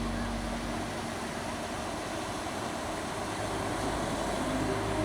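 Ocean surf washing steadily on the shore, an even rushing noise without sharp breaks.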